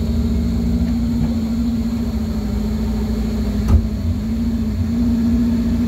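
Off-road 4x4's engine idling steadily, heard from inside the cab, with one sharp thump a little past halfway. The engine note picks up slightly near the end.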